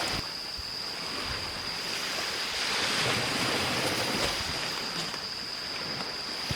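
Waves washing onto the beach: a wash of surf that swells up in the middle and eases off again, over a steady high-pitched tone.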